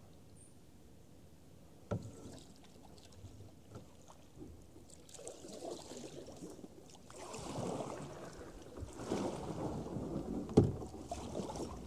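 Canoe paddle strokes splashing and swishing in floodwater, growing louder in the second half, with two sharp knocks, the louder one near the end.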